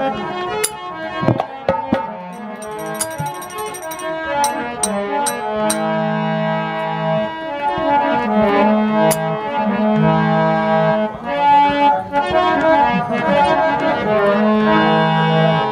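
Harmonium playing a melodic instrumental interlude of held reedy notes, accompanied by dholak drumming and sharp percussive strikes.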